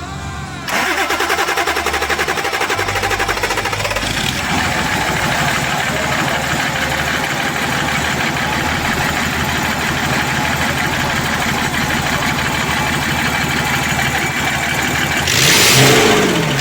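Hyundai Santa Fe engine cranked and catching just under a second in, then idling steadily with a fast even rhythm, freshly fitted with a new pressure valve. A louder rush of noise comes near the end.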